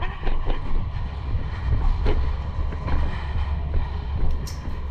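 Steady low rumble and scattered knocks from a body-worn camera jostling as its wearer moves on foot, with footsteps and gear rattle.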